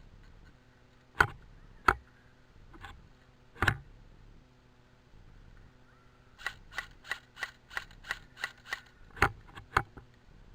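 Airsoft guns firing in sharp cracks: three single shots in the first few seconds, then a quick run of about a dozen lighter cracks at roughly five a second, and two louder shots near the end.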